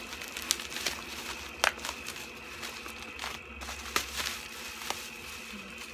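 Plastic bubble wrap crinkling and rustling as it is pulled off a cardboard box, with scattered sharp crackles, the loudest about a second and a half in.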